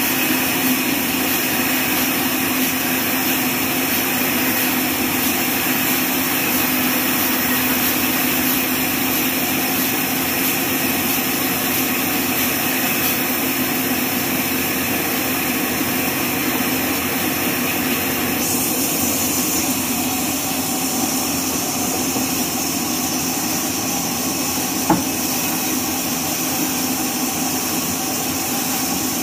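Horizontal band sawmill running steadily, its band blade sawing lengthwise through a neem log, with a steady hum under the noise. A single sharp click comes about 25 seconds in.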